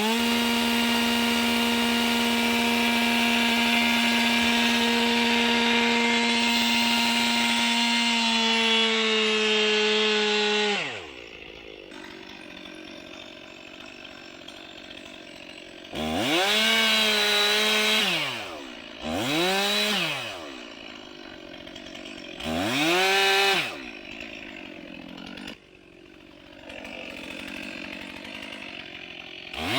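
Chainsaw running at full throttle while cutting wood for about ten seconds, its pitch sagging slightly under load before it drops to idle. It then idles, blips the throttle up three times briefly, and goes back to full throttle at the very end.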